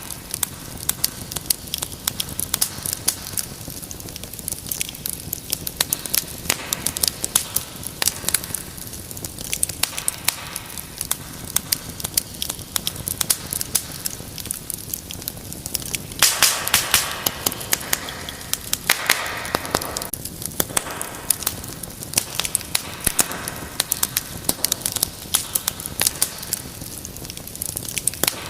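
Wood fire crackling, with many sharp pops over a steady hiss. A little past halfway the crackling grows louder and denser for a couple of seconds, then flares briefly again.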